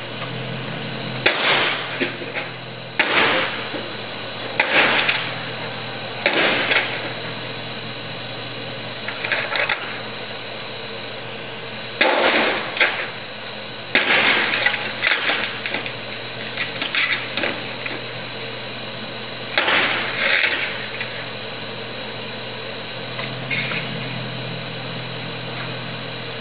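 Repeated loud bangs and cracks of something being struck and broken, about a dozen at irregular intervals one to two seconds apart, with a lull partway through. A steady high-pitched whine and a low hum sit underneath.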